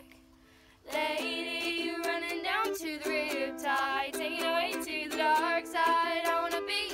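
Two girls singing a duet, accompanied by a strummed ukulele. The song comes back in about a second in after a brief quiet break.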